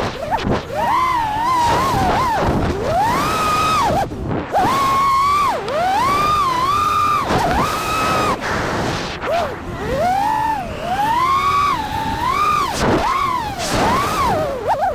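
FPV quadcopter's brushless motors whining, the pitch swooping up and down again and again with the throttle as it climbs, dives and turns, with wind rushing over the onboard camera's microphone.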